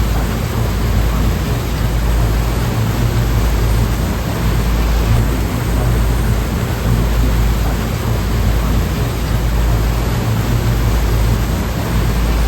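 Ocean surf: a steady, loud wash of breaking waves with a deep low rumble underneath.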